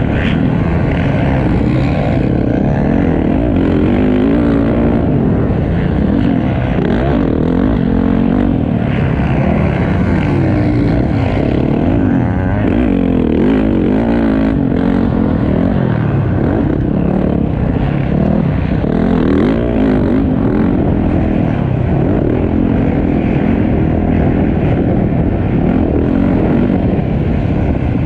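Motocross bike's engine heard from the onboard camera under race load. It revs up and down without a break as the rider accelerates, shifts and rolls off through the track.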